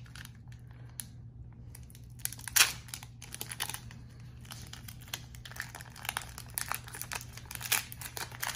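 Foil Pokémon booster-pack wrapper crinkling and tearing as it is opened by hand: a run of crackles, with one louder crackle about two and a half seconds in.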